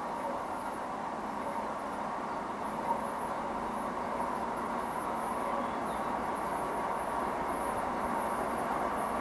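ER20 diesel locomotives approaching from a distance: a steady rumbling hum that slowly grows louder.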